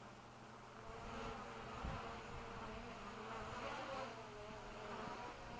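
DJI Mavic Pro quadcopter's propellers buzzing in the air, faint, the pitch wavering up and down as the motors change speed.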